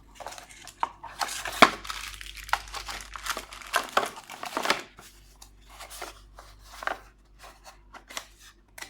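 Packaging being handled and opened: a run of crinkling, rustling and tearing noises, dense for the first few seconds and then thinning to scattered rustles and clicks.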